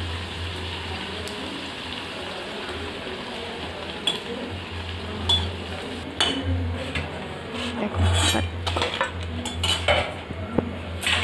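Fuchka puris sizzling as they fry in shallow oil in a steel kadai. A perforated steel spoon scrapes and clinks against the pan while turning them, the knocks coming thicker in the second half.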